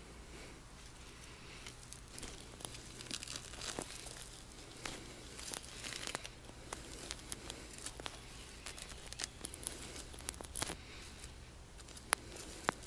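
Faint rustling and scattered crackles of hands working through mulch and dry debris at the base of a house wall, with a sharper snap near the end, over a faint steady low hum.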